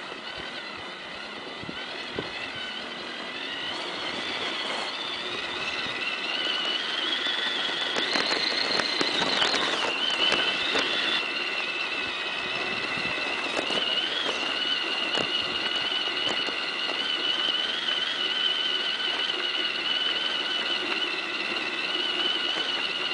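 Tamiya CR-01 RC crawler's electric motor and gearbox whining as it drives through wet snow. The whine climbs in pitch about eight seconds in, drops back around ten seconds, then holds steady, with scattered knocks around the pitch change.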